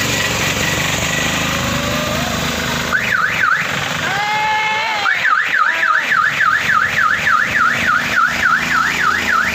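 Electronic vehicle alarm siren over steady vehicle engine noise: a few quick warbles about three seconds in, a short lower tone pattern, then a fast rising-and-falling wail about four cycles a second.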